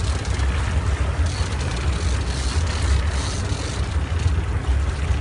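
Wind buffeting the phone's microphone with an uneven low rumble, over the hiss of sea water churning alongside a boat.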